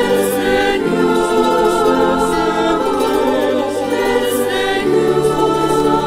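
A choir singing a Marian devotional song, with held notes over a steady low accompaniment.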